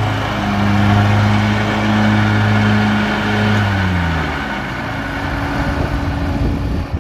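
2012 John Deere Z950A zero-turn riding mower's engine running as the mower drives across grass, a steady hum that drops in pitch and fades about four seconds in, leaving a rougher rumble.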